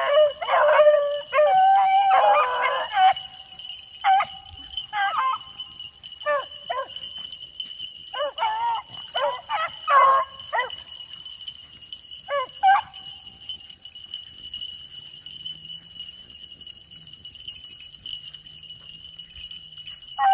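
A pack of beagles baying on a rabbit's track, several voices in drawn-out bawls that come off and on and die away about two-thirds of the way through. A steady high tone runs underneath.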